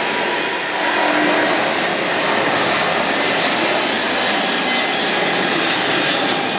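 Boeing 777 jet engines at takeoff power as the airliner lifts off and climbs away, a steady loud rushing noise.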